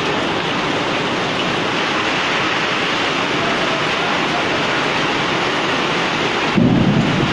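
A heavy downpour of rain and hail pelts a tiled yard in a dense, steady hiss. Near the end there is a brief, louder low rumble.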